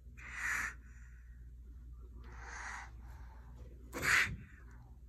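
Iguana hissing three times in short, breathy bursts, a territorial threat; the third hiss, about four seconds in, is the loudest.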